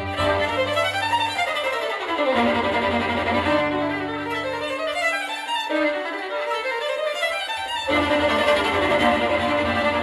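Violin music played back through Cube Audio Jazzon full-range loudspeakers driven by 300B tubes in a single-ended tube amplifier, heard through room microphones. The violin plays fast running phrases. The bass underneath drops away about two seconds in and comes back near the end.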